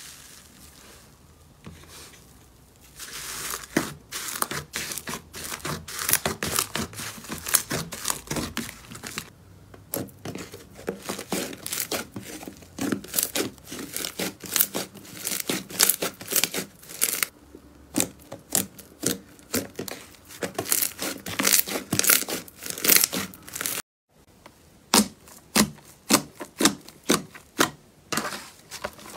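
Slime being pressed, stretched and squeezed by hand, giving a dense run of sticky crackles and pops as trapped air breaks through. It cuts off briefly near the end, then comes back as separate sharper pops while thick slime is pressed and poked.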